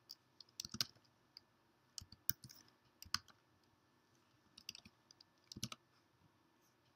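Faint keystrokes on a computer keyboard, coming in five or six short, uneven bursts of clicks as a part number is typed.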